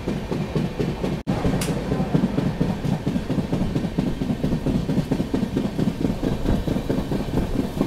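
Passenger train with LHB coaches running along the track: a steady rolling rumble with fast wheel clatter over the rails. It briefly cuts out about a second in.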